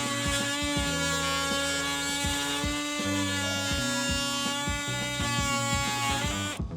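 Oscillating multi-tool running with a steady high buzz, under background music with a steady beat. Both cut out briefly near the end.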